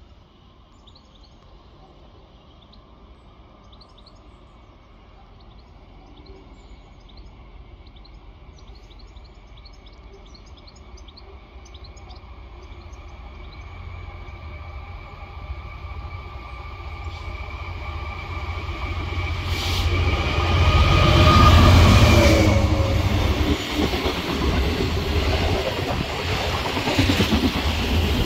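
A Class 66 diesel-electric freight locomotive, with its EMD two-stroke V12 engine, approaches and passes hauling a train of open box wagons. The engine sound grows steadily louder for about twenty seconds and peaks as the locomotive goes by. After that, the wagons keep rolling past with a loud rumble.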